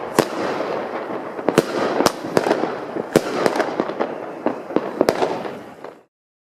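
Fireworks going off: a continuous crackling din with sharp bangs at irregular intervals, about one a second. The sound cuts off suddenly about six seconds in.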